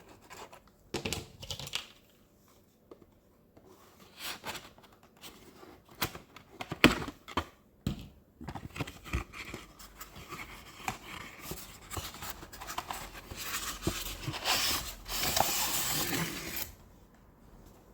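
Hands handling a diecast model and its packaging: scattered clicks, knocks and scratching, then a few seconds of rustling and tearing near the end as sticky tape is peeled off.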